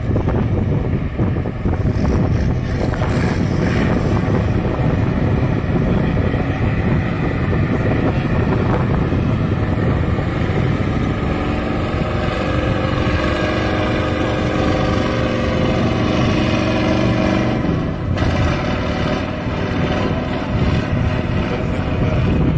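Heavy six-wheeled off-road truck engine running hard under load as the truck churns through mud and climbs a steep bank, its note settling into a steady drone partway through.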